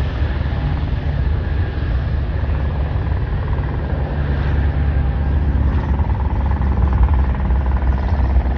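Delta airliner's jet engines at takeoff thrust during its takeoff roll and climb-out, a loud steady rumble with a faint whine over it.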